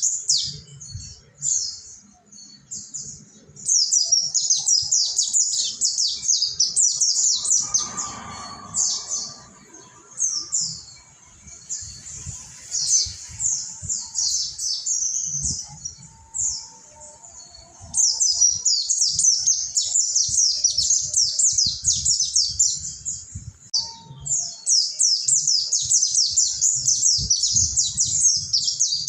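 Mountain white-eye (pleci monty) singing a long, fast twittering song of rapid high chirps, in dense runs with a sparser, broken stretch in the middle before it picks up again.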